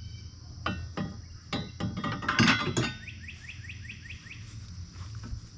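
Knocks and clatter of mower-bagger parts being handled and fitted to the back of an electric zero-turn mower. This is followed by a bird calling a quick run of about eight descending notes.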